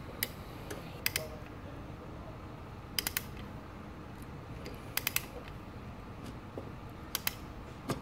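Lokring pliers being squeezed to press a lock ring onto a copper refrigeration pipe joint: sharp metallic clicks in small groups of two or three, about every two seconds.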